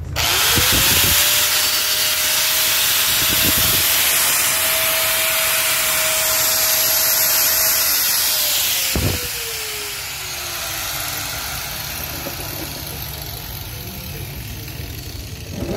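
Electric angle grinder switched on, its motor whine rising to speed and holding steady while the disc cuts a mark into a mill's grinding stone with a loud, gritty hiss. After about eight and a half seconds it is released and the whine falls away as the disc coasts down, with a single knock about nine seconds in.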